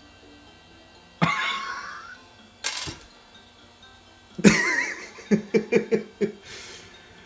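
A man makes exasperated vocal sounds, with a sharp click about three seconds in, then lets out a short burst of rueful laughter of about six quick pulses.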